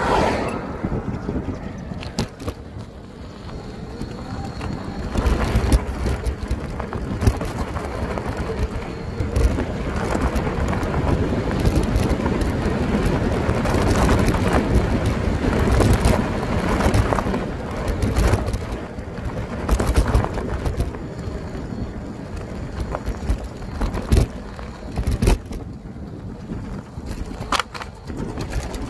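Off-road electric bike riding over rough ground: a rumble of wind buffeting the microphone and tyres on the trail that swells and eases, with frequent sharp knocks and rattles as the bike takes bumps.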